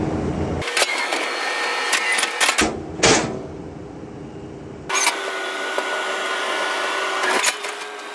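Machinery running in several short stretches that change abruptly, each with a steady mechanical drone.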